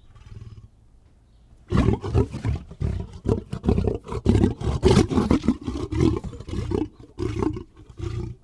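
Lion roaring: a soft call at the start, then from about two seconds in a long run of loud, short grunting roars in quick succession.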